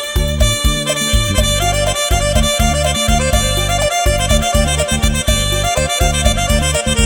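Electronic keyboard playing an upbeat Isan lam phloen medley, with a steady driving beat under a reedy, accordion-like lead melody.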